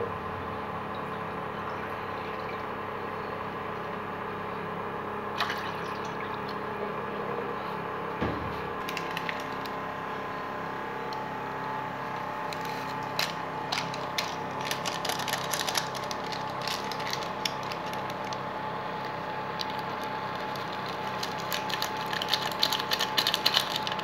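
Water heating in a steel saucepan over a steady background hum. Scattered small clicks start about halfway through, and near the end a spoon clinks and scrapes as it stirs the spiced water.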